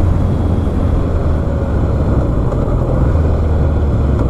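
Motorcycle riding at speed, heard from a microphone inside the rider's helmet: wind rushing over the helmet on top of a steady low engine drone.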